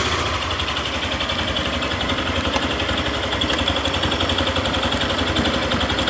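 Yamaha Fazer 150's fuel-injected single-cylinder engine idling steadily, freshly started. The owner hears an odd injection noise from it while it runs and asks whether this is normal.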